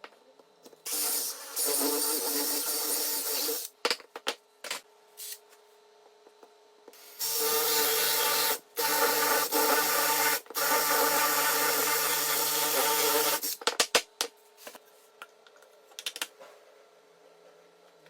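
Grinding machine running in bursts, a harsh rasping noise with a steady hum under it: one run about a second in and three longer runs in the second half, with clicks and knocks between them.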